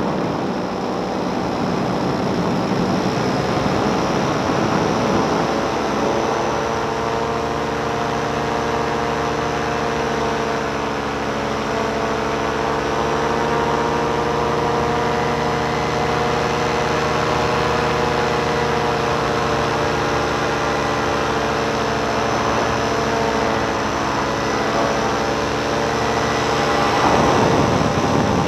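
Paramotor engine and propeller running steadily in flight, a droning engine note with wind rushing over the microphone. The drone stands out clearly from a few seconds in until near the end, wavering slightly in pitch, and is buried under the wind noise at either end.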